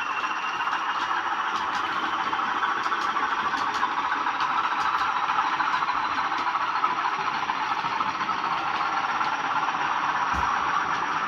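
Bachmann OO gauge Class 20 model locomotives' DCC sound decoders playing the Class 20 diesel engine sound through their small onboard speakers, running steadily. A thin whistle rises slowly in pitch over the first several seconds.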